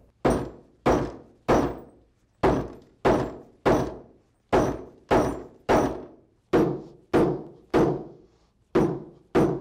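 Hammer peening the cut-off bolt ends on Flexco bolt solid plate conveyor belt fasteners: about fourteen sharp metal knocks, each with a short ring, struck in quick groups of three. Peening locks the nuts against backing off and sets the plate teeth into the belt carcass.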